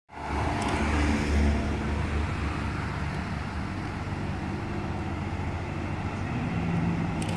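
Cars driving slowly down a race-circuit pit lane. A Renault Mégane RS passes close in the first second or so, loudest then, and more cars follow at low speed, their engine note growing louder near the end as they approach.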